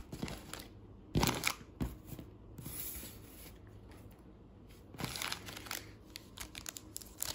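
Foil wrappers of Panini Prizm baseball card packs crinkling as they are handled and laid on a table, in several short bursts with quieter gaps between.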